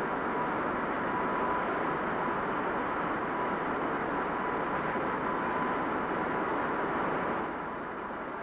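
Avrocar's turbojet engines and central turbo-rotor running: a steady jet rush with a thin high whine, easing slightly near the end.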